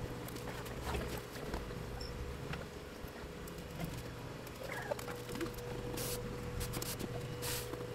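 Hands handling the plastic frame of a bare LCD panel: scattered small clicks and rubbing over a steady low hum, with two short hissing rustles near the end.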